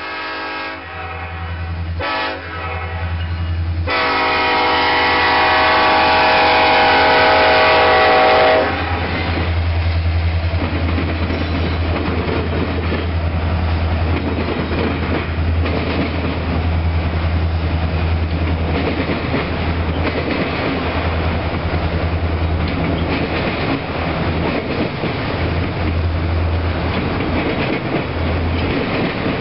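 Freight train's diesel locomotive horn blowing for a grade crossing: a blast ending about a second in, a short blast, then a long blast that stops about eight and a half seconds in, the close of the long-long-short-long crossing signal. Then the locomotive's low engine rumble and the steady rumble and clatter of autorack cars rolling past over the crossing.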